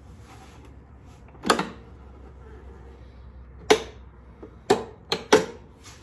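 Sharp knocks and clicks of a batwing motorcycle fairing being worked off its mounting brackets: one about a second and a half in, another near four seconds, then three close together near the end.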